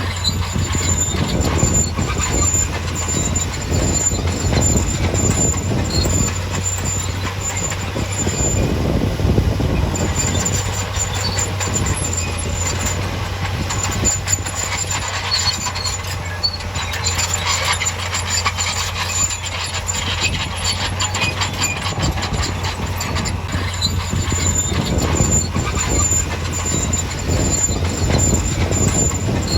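Crawler bulldozer working: a steady diesel engine drone under continuous clanking of steel tracks, with a thin high squeal that comes and goes.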